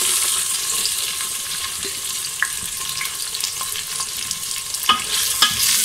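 Sliced onions sizzling in hot Dalda ghee (hydrogenated vegetable fat) in an aluminium pressure cooker, as they begin browning. The steady hiss eases slightly, with a few sharp clicks near the end.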